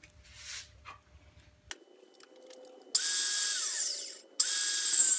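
Craftsman 19.2-volt battery-powered 5.5-inch circular saw test-run after a few handling clicks: a short burst of high-pitched running about three seconds in that winds down with a falling whine, then the saw starts again near the end and cuts.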